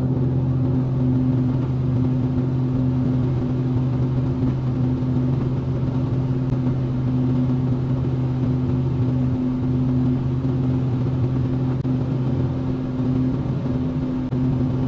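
Excavator's diesel engine running at a steady speed with an even hum while the machine works in pond mud.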